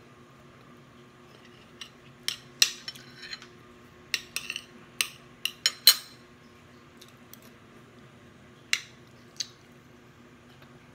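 Metal cutlery clinking and scraping against a glass plate of rice. A quick run of sharp clinks comes from about two seconds in to six seconds, then two more near the end.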